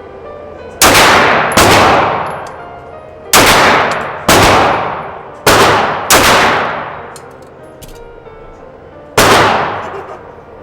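Seven 9mm pistol shots from a CZ Tactical Sport Orange, fired at uneven intervals over about eight and a half seconds, with a longer pause before the last. Each shot is loud and rings out for a second or more before the next.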